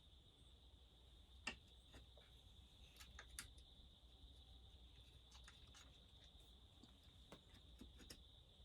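Near silence with a few faint, sharp clicks and taps of small metal parts and tools being handled during chainsaw reassembly, the clearest about a second and a half in; a faint steady high-pitched drone runs underneath.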